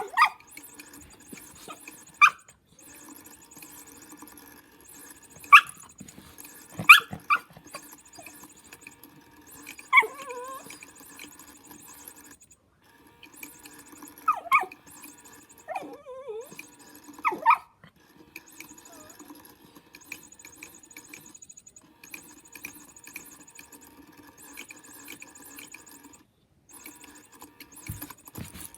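Miniature schnauzer puppy giving short, sharp barks and yips, a few of them sliding into whines. Under them runs the steady whir of a small battery-powered motion cat toy, which stops and starts again several times.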